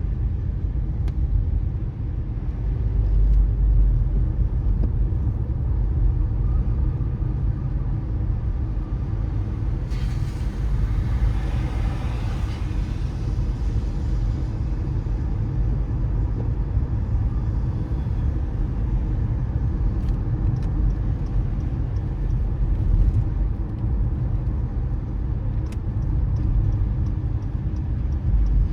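Car driving on wet city streets: a steady low rumble of engine and tyres on wet road. Around the middle a louder hiss swells up and fades over a few seconds, and a few faint clicks come later.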